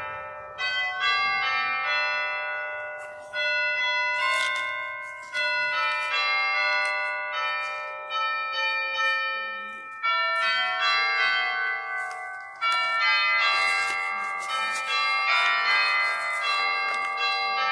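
Instrumental postlude of bell-like struck notes and chords. Each group starts suddenly every second or two and rings on as it fades.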